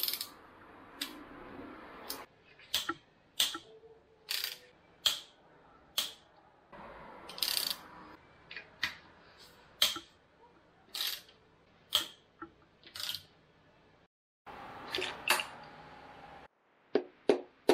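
Socket wrench working on the connecting-rod cap bolts of a Nissan RB30 engine block: a string of sharp metallic clicks, roughly one or two a second.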